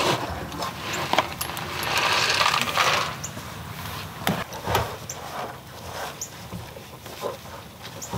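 A plastic folding step stool clacks and is set down on the ground beside a cow, followed by a brief rustle about two seconds in and scattered light clicks and knocks.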